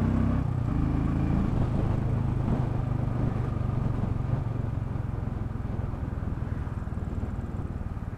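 Royal Enfield Bullet 500 single-cylinder motorcycle engine running on the road. Its steady note weakens after about a second and a half into a rougher sound that grows gradually quieter toward the end.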